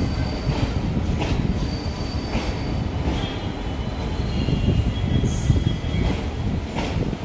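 Passenger coaches of an arriving express train rolling beneath a footbridge: a steady low rumble, scattered sharp clanks, and faint high wheel squeals as the train slows into the platform.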